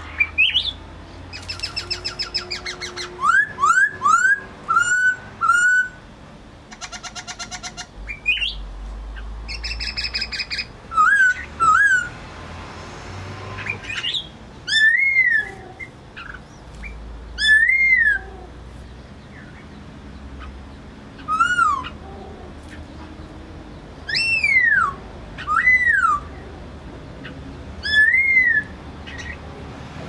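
Black-throated laughingthrush singing: loud, clear whistled notes that rise and fall, repeated every two to three seconds, mixed with fast rattling chatters in the first half.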